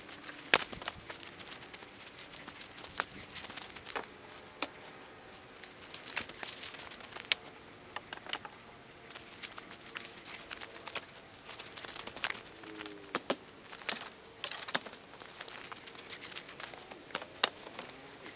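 Footsteps crunching through dry leaf litter and dry sticks cracking and knocking together as they are gathered and laid on a log pile: many sharp irregular cracks and rustles.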